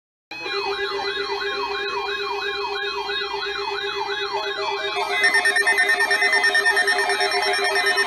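Weather radio alert alarms going off for a required weekly test: a warbling siren tone sweeping up and down about three to four times a second over a steady lower tone. About five seconds in, a second alarm's steady higher tones join and it gets louder.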